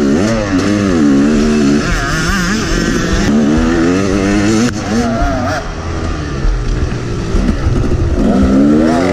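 Yamaha YZ250 two-stroke dirt bike engine heard on board, revving up and down as the rider accelerates and shifts, with wind noise over it. A single sharp click about halfway through.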